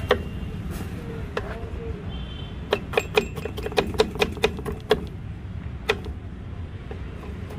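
Kitchen knife chopping a green capsicum on a wooden chopping board: a quick run of about ten sharp knocks of the blade on the board, four or five a second, with single knocks before and after, over a steady low rumble.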